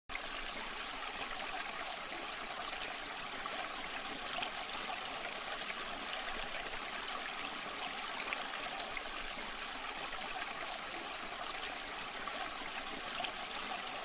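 Tabletop cement waterfall fountain running: thin streams of water pouring from an upper bowl into a lower bowl and down into the basin, a steady trickling splash.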